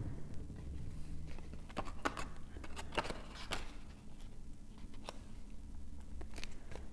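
Light paper-craft handling: cardstock being pressed into place, giving a handful of scattered soft taps and rustles over a low steady hum.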